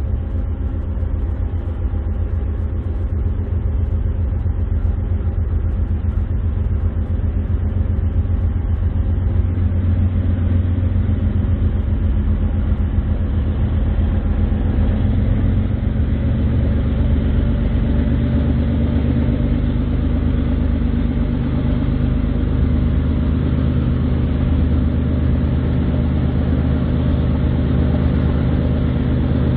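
Diesel freight locomotive engines running steadily, the low engine note growing fuller and a little louder from about ten seconds in.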